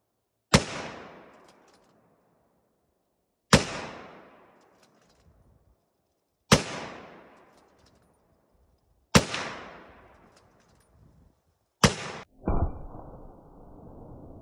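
Ruger Precision Rifle fired five times, about three seconds apart, each shot sharp and followed by a fading echo. The last shot cuts off short, and near the end comes a duller, drawn-out boom without the sharp crack.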